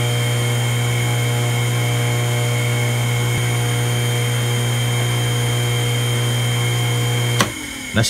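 Small electric induction motor (pump 1 on a booster-pump control trainer) running with a steady electrical hum, restarted after its overload relay was reset. Near the end it cuts off suddenly with a click.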